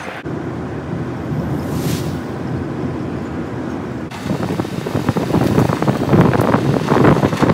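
Driving noise from inside a moving vehicle: steady road and wind noise, which turns louder and rougher about halfway through, with the rumble of tyres on an unsealed dirt track and wind on the microphone.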